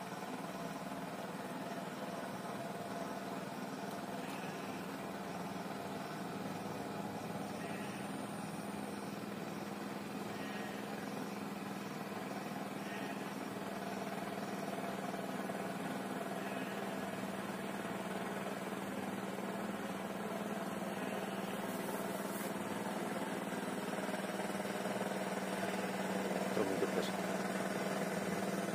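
A small river boat's engine running steadily, growing gradually louder as the boat approaches, with a couple of brief knocks near the end.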